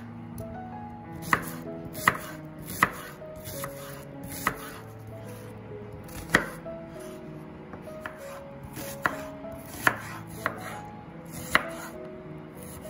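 Kitchen knife slicing a red onion on a wooden cutting board: about a dozen sharp, irregularly spaced knocks as the blade strikes the board. Soft background music plays underneath.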